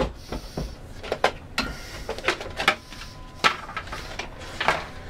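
Plastic ammo-box case being handled and opened: a string of separate clicks and knocks, about eight in all, as its latches are unclipped and the lid is lifted.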